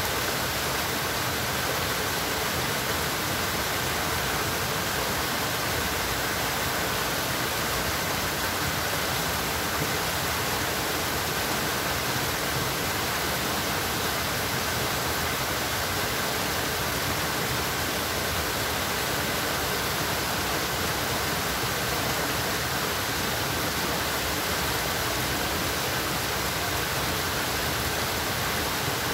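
Steady rush of flowing water, an even noise with no change in level.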